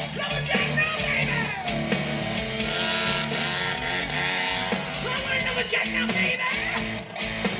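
Live hard rock band playing loud, with electric guitar lines that slide up and down in pitch.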